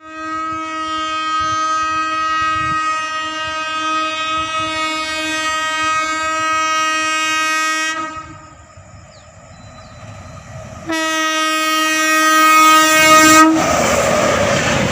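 Horn of an Indian Railways WAP7 electric locomotive sounding one long steady blast of about eight seconds, then a second shorter blast about three seconds later. The horn cuts off as the express passes at speed with a loud rushing rattle.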